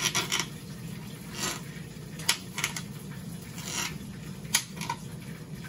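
Kitchen knife chopping a red onion on a glass cutting board: about eight irregular, sharp taps of the blade on the board, over a steady low hum.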